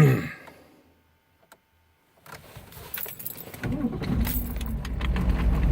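Keys jangle in the ignition, then the GM 6.5 turbo diesel V8 cranks briefly and starts about three and a half seconds in, a quick cold start after glow-plug heating, and runs steadily, growing louder.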